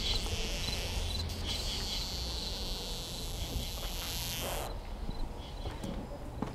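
Insects chirping in short, repeated pulses over a high hiss. The hiss cuts off suddenly about four and a half seconds in, leaving fainter chirps and a few sharp clicks near the end.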